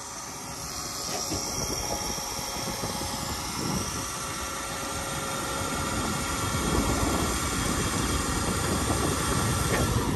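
A box truck's motor running steadily, getting louder over the first several seconds and then holding level.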